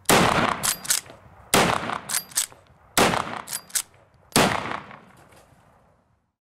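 Four loud gunshots, about one and a half seconds apart, each dying away over a second. Each is followed about half a second later by two short, sharp metallic clinks with a thin ringing tone.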